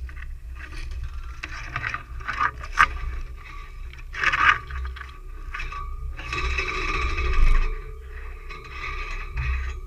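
Scraping and rubbing against an off-road vehicle's body as it works along a trail: a run of uneven scrapes with two sharp ones about three and four seconds in and a longer, louder scrape near the middle of the second half, over a steady low rumble.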